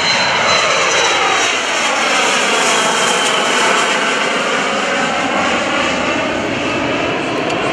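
Gulfstream G280 business jet's twin turbofan engines at climb power, a loud steady jet noise as it departs and banks away, with a whine that sweeps down in pitch over the first few seconds.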